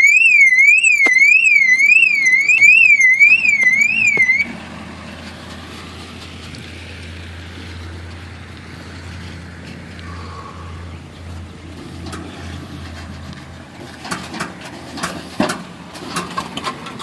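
Car alarm siren warbling up and down about three times a second, cutting off suddenly about four seconds in. After it, a low steady engine hum, with a few knocks and clatters near the end.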